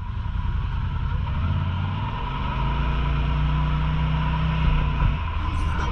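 UTV engine running as the vehicle drives, its pitch climbing a little from about a second and a half in and holding steady, then easing off near the end.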